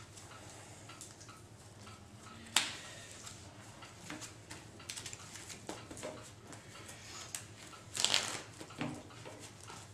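Trading cards and a plastic deck box handled on a tabletop: scattered light clicks and taps, one sharp click about two and a half seconds in, and a short rustle about eight seconds in.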